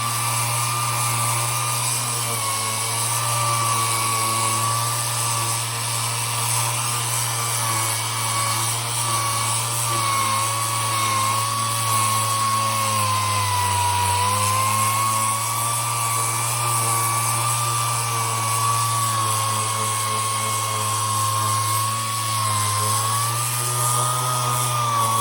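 Handheld electric power tool running steadily, its whine wavering slightly in pitch as it works against the fibreglass.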